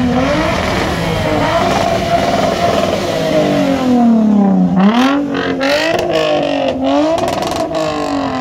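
Car engine revving hard, its pitch climbing and falling again several times, with a run of sharp breaks in the sound in the second half.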